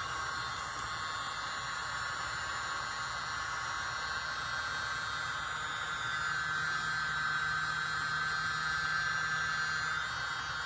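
Tiny handheld electric leaf blower running steadily, a whir with an airy hiss as it blows wet acrylic paint outward into a bloom. It gets a little louder about six seconds in.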